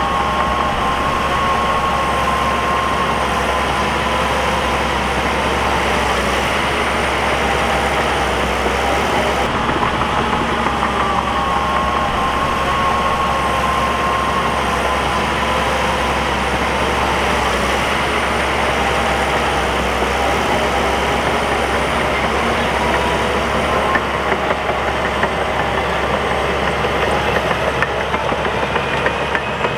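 Crawler bulldozer's diesel engine running steadily while working, with a whine that slowly drifts up and down in pitch.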